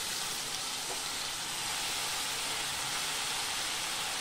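Freshly washed, chopped spinach sizzling steadily in hot oil in a kadhai.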